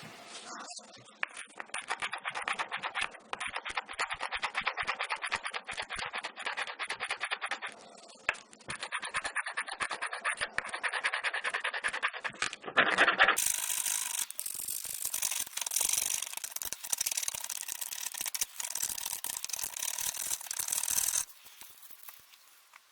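Steel plane blade held in a honing guide being rubbed back and forth on fine-grit sandpaper to sharpen its bevel, in quick repeated rasping strokes. Partway through, the strokes turn louder and rougher before trailing off near the end.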